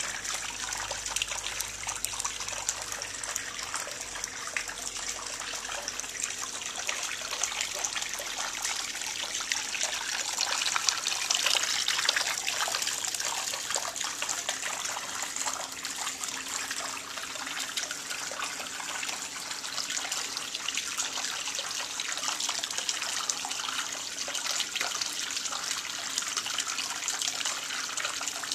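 Hot-spring water trickling and splashing steadily, a little louder around ten to twelve seconds in.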